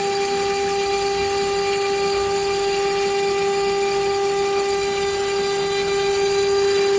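Stone CNC countertop machine's spindle running, a steady high whine with hiss, holding one pitch throughout.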